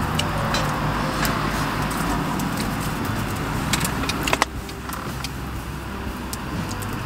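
Wood fire crackling and popping in a small steel fire box: irregular sharp snaps, the loudest about four and a half seconds in. A steady low rumble of road traffic runs underneath.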